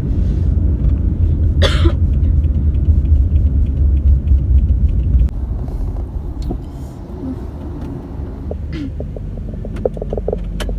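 Road rumble inside a moving car, with one short cough about two seconds in. The rumble drops sharply about halfway through.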